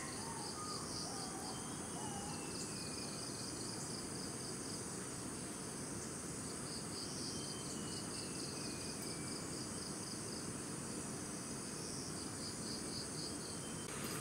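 Tropical forest insect chorus: a steady high-pitched buzzing, with a pulsing trill that fades in and out several times. A few faint falling whistles sound beneath it.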